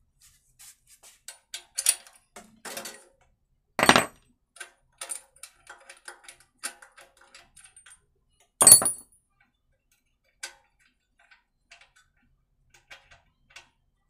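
Metal tools clicking and clanking against a small generator engine as its spark plug is taken out: scattered clicks, with two louder clanks about four seconds in and near nine seconds, then only a few faint clicks.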